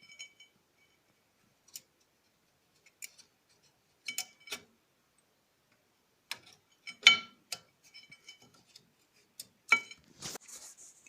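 Scattered clicks and light metallic clinks of small steel brake-pad spreader clips being handled and fitted at a disc brake caliper, a few with a short ring, coming in uneven clusters every second or two.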